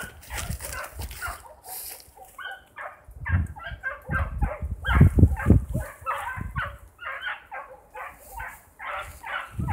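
Young beagles baying in a rapid run of short, high barking yelps, two or three a second, from about two seconds in. A few dull low thumps come in under the calls.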